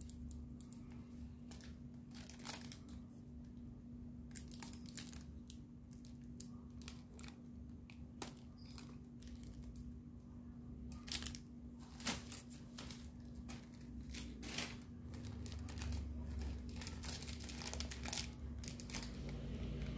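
Crinkling of the toy ornithopter's printed wings and irregular small clicks of its plastic frame parts as it is handled and put together by hand, with a few louder clicks about halfway through. A low steady hum runs underneath.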